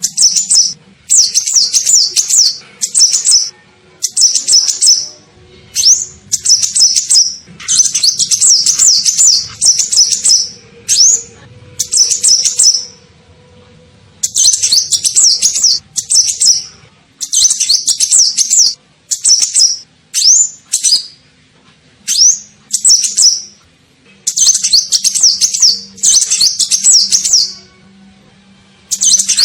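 Sunbird ('kolibri ninja') song played as a lure call: rapid, high twittering phrases of one to two seconds each, repeated again and again with short pauses between.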